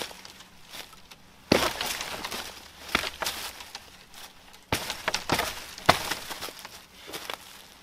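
Dry dead branches snapping and cracking as they are broken underfoot and by hand: four sharp snaps a second or so apart, each trailing into a splintery crackle, with smaller twig snaps between.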